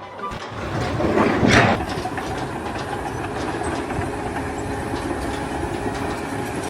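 Steady, loud mechanical rumble and rush, swelling about a second in and then holding even.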